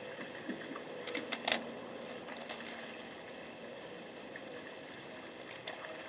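Black bear licking and scraping at ice in a shallow bird-bath dish: irregular wet clicks and scrapes, the sharpest about a second and a half in, over a steady hiss.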